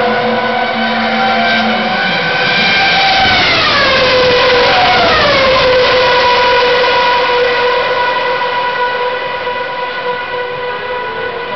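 Formula One cars' 2.4-litre V8 engines screaming at very high revs, loud and high-pitched. The engine note falls twice, a few seconds in, then runs steady again.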